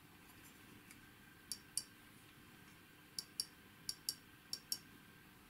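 Limit switch (microswitch) inside an aircraft solenoid valve clicking as the valve's stem is pressed by hand and let go: four pairs of sharp, light clicks, the two clicks of each pair about a quarter second apart.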